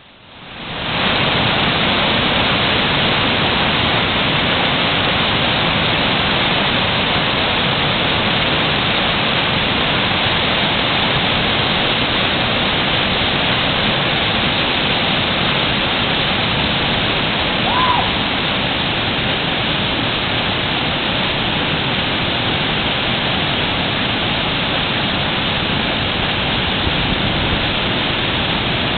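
Loud, steady rush of a waterfall, coming in over the first second and holding even throughout. About two-thirds of the way through, a brief pitched note rises and falls above the roar.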